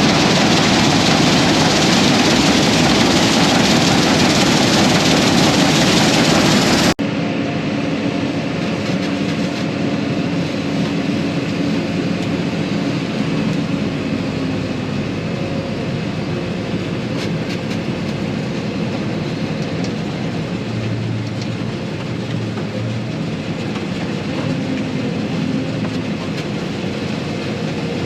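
Combine harvester running steadily while cutting beans. The sound cuts abruptly about seven seconds in to a quieter, duller steady running.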